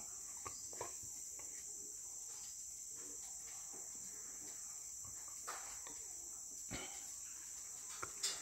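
A dog biting into a thin keropok cracker stick held out by hand: a few short, sharp crunches and clicks, the loudest near the end, over steady high-pitched insect chirring.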